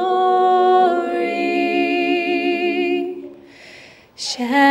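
Three women singing unaccompanied in close harmony, holding one long chord for about three seconds. It fades into a short lull, and they start the next phrase near the end.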